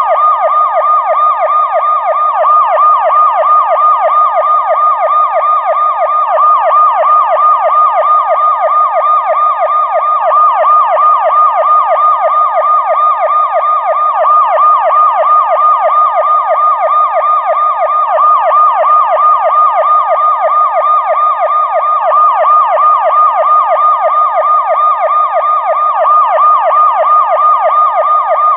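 Police siren in a fast yelp pattern: its pitch sweeps rapidly up and down several times a second in an even, unbroken rhythm at a steady, loud level.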